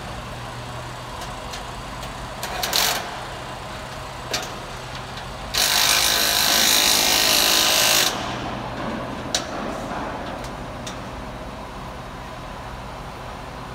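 Construction-site steelwork: a steady low engine hum under scattered metallic knocks and clanks. About five and a half seconds in, a loud hissing power tool runs for about two and a half seconds and cuts off suddenly.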